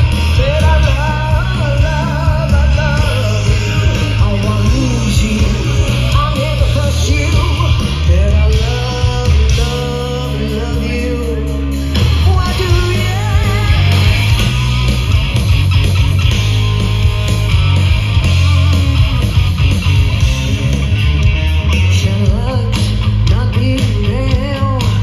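Rock band playing live through a festival PA, lead singer over electric guitar, bass and drums. About ten seconds in the drums drop out over a held bass note for a couple of seconds, then the full band comes back in.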